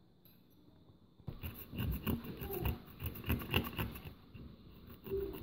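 Wooden digging tool scraping and chipping at a plaster crystal-kit digging block: a quick run of short scratching strokes, starting about a second in and easing off after a few seconds.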